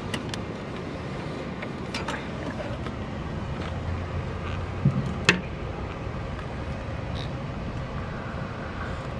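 Steady outdoor background rumble of traffic and nearby construction, with a few short sharp clicks, the sharpest about five seconds in.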